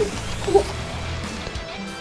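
Background music with a steady bass line and light guitar.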